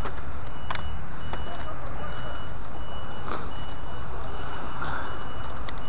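A vehicle reversing alarm sounding in evenly spaced beeps of one steady pitch, over a constant low rumble. A few sharp clicks come through as the magnetic sweeper rolls over the grass and picks up metal bits such as bottle tops.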